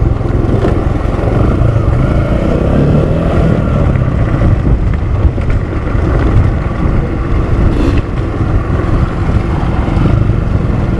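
Kawasaki KLX 150L dirt bike's single-cylinder four-stroke engine running steadily while the bike is ridden.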